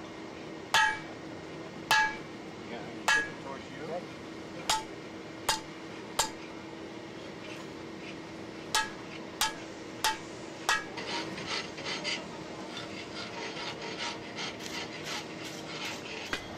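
Hammer blows ringing on a rod laid across a red-hot steel block on the anvil, driving a groove into the hot metal: about ten strikes roughly a second apart, with a short pause after the sixth. After about eleven seconds they give way to lighter clinks and scraping.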